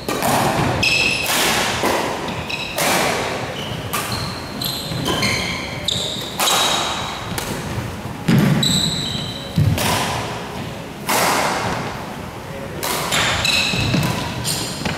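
Badminton racket strings hitting a shuttlecock in a doubles rally, a sharp hit about every one to one and a half seconds, echoing in a large hall. Shoes squeak briefly on the court floor between hits, with a couple of heavier thuds of footfalls past the midpoint.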